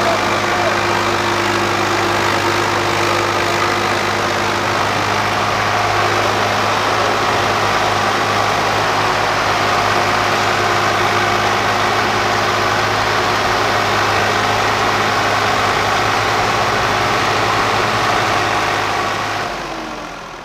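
Swaraj 855 FE tractor's three-cylinder diesel engine running steadily, a low, even hum with the loaded trolley hitched behind. The sound fades out near the end.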